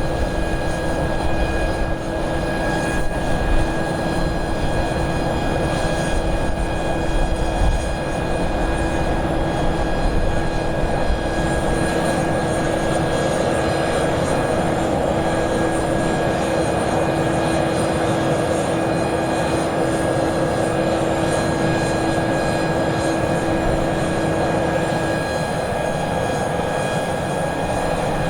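Airbus A400M's four turboprop engines running steadily: a continuous drone with several held tones, one lower tone dropping out near the end.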